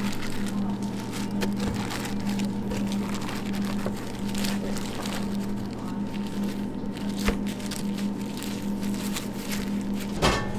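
Steady low hum of kitchen equipment, with soft rustling and light taps from plastic-gloved hands handling gimbap ingredients. A short click comes about seven seconds in, and a sharper knock near the end.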